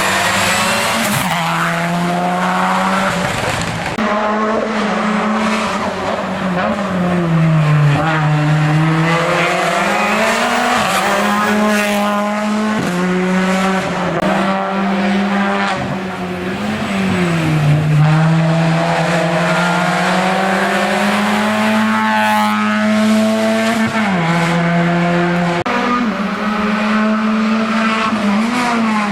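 Hill-climb race car's engine under hard load, its pitch stepping abruptly at repeated gear changes and dipping and rising again as the car slows for bends and accelerates out.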